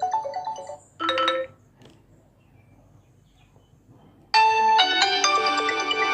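Smartphone ringtones played one after another: a bell-like melody breaks off, a short single chime sounds about a second in, then after a pause of a few seconds another bright ringtone melody starts abruptly.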